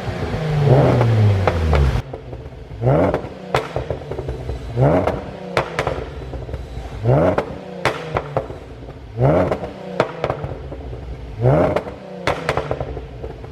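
2015 Jaguar XF's 3.0-litre supercharged V6, tuned for exhaust pops, blipped in a series of short revs about every two seconds. Each rev dies away into a cluster of sharp pops and crackles from the exhaust on the overrun.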